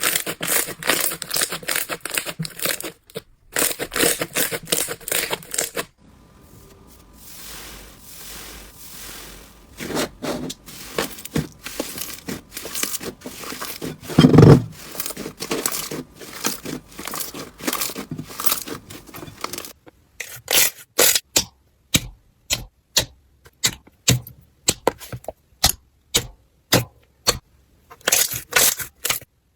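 Slime being squeezed and poked by hand, making crackling, popping clicks. The clicks are dense at first, briefly softer, then from about two-thirds of the way in they turn to sharp separate pops at about two a second.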